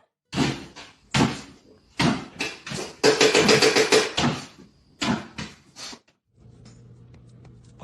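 A series of loud knocks and bangs, with a fast rattling run about three seconds in, then a low steady hum from about six seconds.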